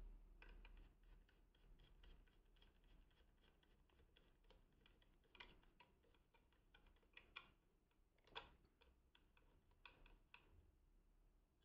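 Faint, irregular clicking of a small screwdriver working the screw of a plastic battery cover on a weather-station sensor, with a few sharper clicks about five and a half, seven and a half and eight and a half seconds in.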